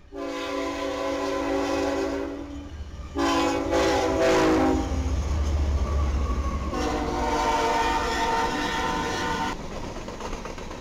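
Diesel freight locomotive's air horn sounding three blasts as the train passes: a long blast, a shorter one that slides down in pitch, and another long one that sounds lower than the first. Under it the locomotive's engine and the rolling cars rumble, loudest in the middle.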